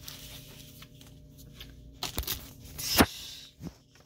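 Paper and tissue paper rustling and crinkling as items are handled in a cardboard box. There are a few sharp paper scrapes about two seconds in, and the loudest comes about three seconds in, as a card is drawn from its envelope.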